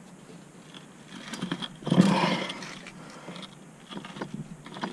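A man's strained grunt about two seconds in as he hand-tightens a spin-on oil filter, with faint handling and rubbing noise around it.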